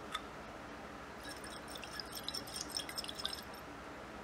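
Faint sloshing and dripping of blue ethanol stain solution in a tilted glass jar: a light tap just after the start, then a scatter of small drips and ticks for about two seconds in the middle.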